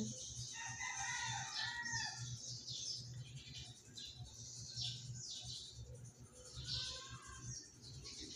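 Birds chirping repeatedly in short sweeps, with a longer, lower call in the first two seconds and another around seven seconds in.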